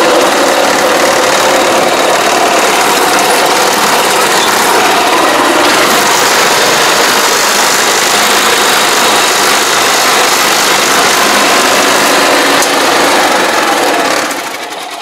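Yanmar farm tractor's engine running loud and steady as the tractor drives, heard close up from the operator's seat. The sound fades away near the end.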